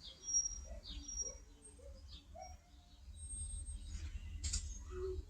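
A bird giving faint, scattered short chirps and calls, with a single click about four and a half seconds in.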